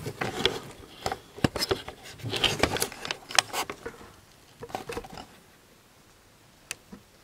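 Hand tools and parts being handled and set down: a busy run of clicks, clinks and rustles for about four seconds, then only a few scattered clicks.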